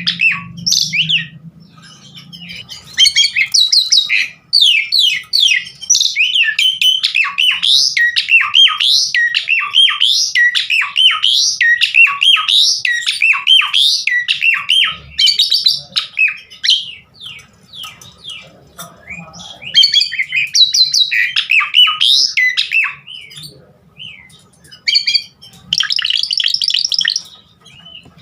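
Asian pied starling (jalak suren) in full song: a fast, varied stream of whistles, chirps and harsh squawky notes packed with mimicked phrases, in runs broken by short pauses, with a dense buzzy chatter near the end.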